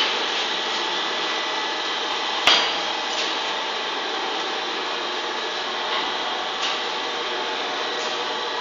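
Steady background hiss, with one sharp knock about two and a half seconds in and a few fainter knocks later.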